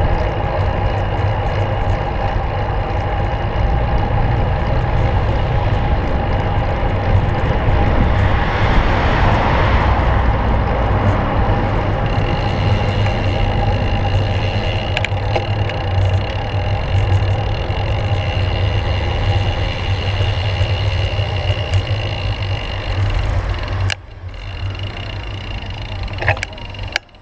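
Wind rumble and road noise on a handlebar-mounted camera while riding a road bike in street traffic. Near the end the rumble drops away as the bike slows to a stop, leaving a few sharp clicks.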